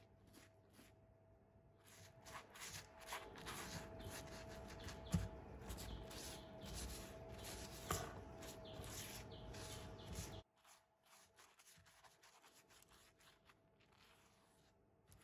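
Faint scratchy rubbing made of many short strokes, stopping abruptly about ten seconds in, over a faint steady hum.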